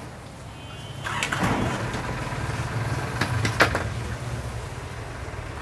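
An engine running steadily, coming up about a second in, with a few sharp clicks over it.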